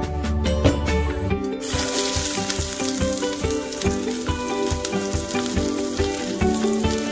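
Chopped onions sizzling in hot vegetable oil in a stainless steel frying pan. The sizzle starts suddenly about two seconds in and runs on steadily.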